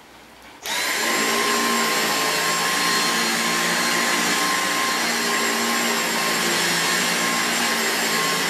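Dyson V6 Absolute cordless stick vacuum switched on about half a second in. Its motor spins up with a quick rising whine, then runs steadily with a high whine while the floor head is pushed over carpet.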